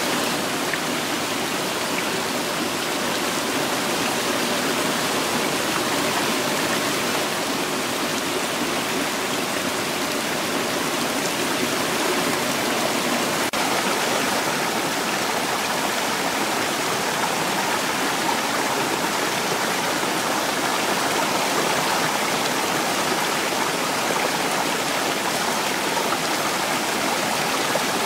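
Ornamental garden fountains: many jets, spouts and a cascade pouring and splashing into stone basins, a steady rush of falling water.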